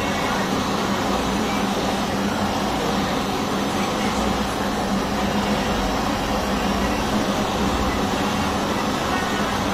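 Hand-held gas torch burning steadily, a constant rushing flame noise with a low steady hum underneath, as it heats a metal ring on a soldering block.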